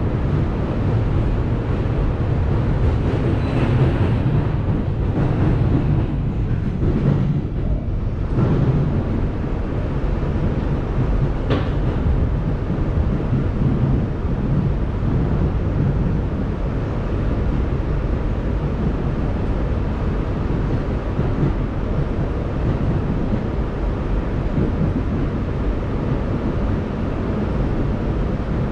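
R211A subway car running at speed, heard from inside the car: a steady rumble of wheels on rail. There is a short, sharp high sound about twelve seconds in.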